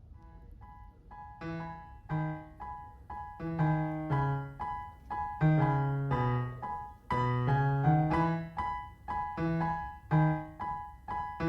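Background piano music: a gentle melody of struck notes over chords, fading in during the first second or so.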